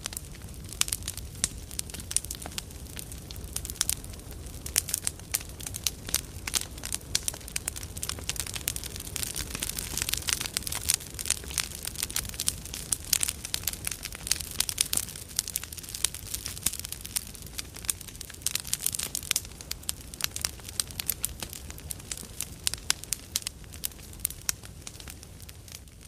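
Large campfire burning, with dense, sharp crackles and pops over a low rumble of flames. The crackling is busiest in the middle.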